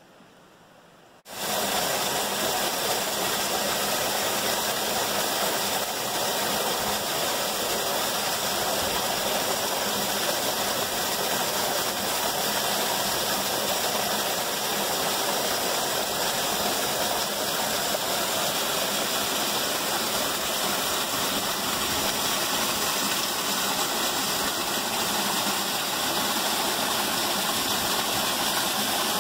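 Small canyon waterfall, down to a single thin stream, splashing into a rock-walled pool: a steady rush of falling water that cuts in about a second in, after a faint hiss.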